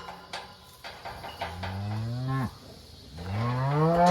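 Cattle mooing: two long, low moos, one about a second and a half in and a louder one near the end, each rising in pitch as it starts.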